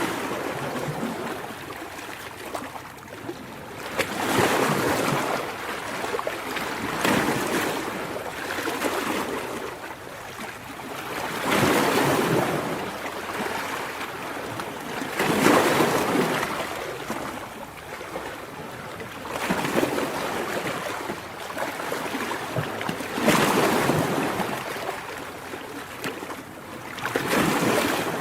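Ocean waves breaking and washing in, the surf swelling and ebbing every few seconds.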